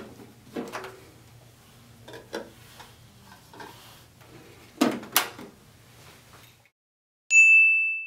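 Plastic clicks and knocks of a toy microwave's door being opened and a plastic toy burger being handled, over a low steady hum; the two loudest knocks come near the middle. Near the end a single bright chime rings out and fades.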